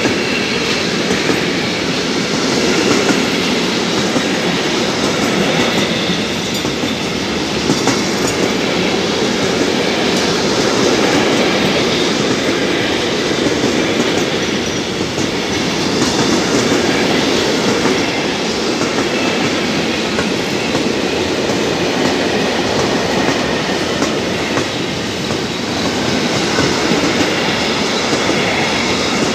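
Freight train of container wagons rolling past close by: a steady running noise of steel wheels on the rails, with wheel clatter over the track.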